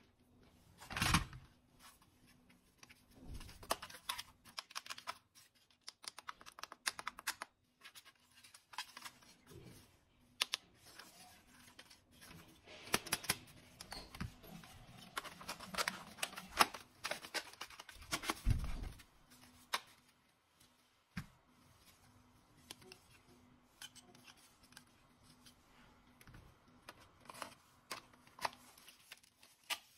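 Hard plastic toy gun and rocket-launcher parts being handled and fitted together: scattered clicks, taps and light rattles of plastic, with two louder dull knocks as pieces are set down or bumped.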